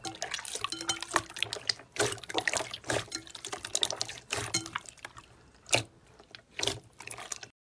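Clear slime squeezed and pressed by hand: wet squelching with many irregular sharp pops and crackles, stopping abruptly near the end.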